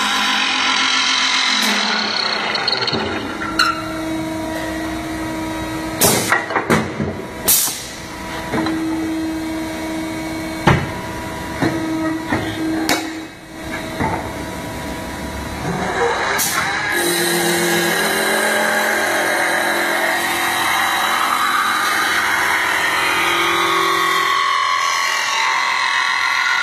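Automatic wood lathe running steadily, its spindle humming and its knife cutting a spinning wooden handle blank, with several sharp knocks in the middle of the stretch.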